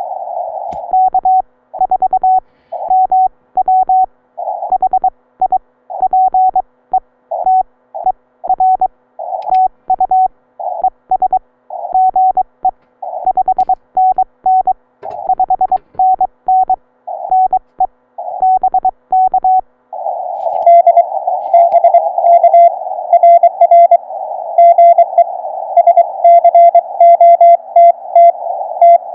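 Morse code (CW) from a Ten-Tec Eagle ham radio transceiver on 40 metres. For about twenty seconds a keyed tone sends dits and dahs with silent gaps between them, the operator's own transmission. Then the other station's Morse comes through the receiver at a slightly lower pitch over steady band hiss.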